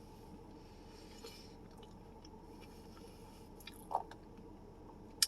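Faint chewing and mouth sounds of someone eating, with a few small wet sounds and a short sharp click near the end.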